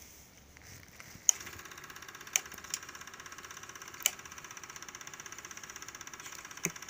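Porst Super 8 film projector switched on with a sharp click about a second in, then running with a fast, even mechanical clatter. A few more sharp clicks come as its controls are worked.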